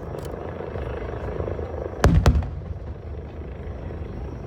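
Two aerial firework shells bursting with sharp bangs in quick succession about two seconds in, over a steady low rumble.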